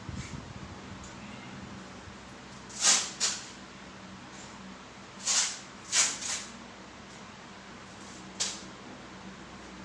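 A person breathing in short, sharp hissing puffs, six in all, several in quick pairs, over a faint steady low hum.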